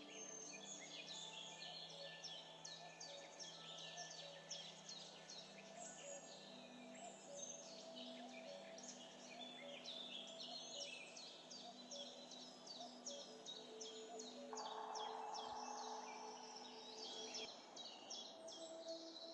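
Soft background music of long held notes, with quick, high bird chirping running through it. A short stretch of hiss comes about three quarters of the way in.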